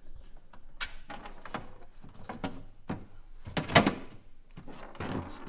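Knocks, clicks and scrapes of hands working plastic parts inside a kayak hull, fitting a rod-tube bracket and wiring into a tight space. The loudest knocks come in a cluster a little past halfway.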